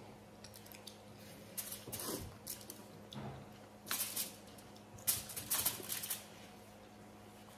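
Quiet crackles and rustles of aluminium-foil trays as momos are picked from them, coming in several short clusters.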